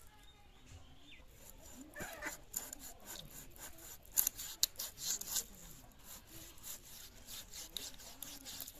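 A mrigal carp being scaled against the serrated head of an upright bonti blade: a run of short, uneven rasping scrapes, loudest about four to five and a half seconds in.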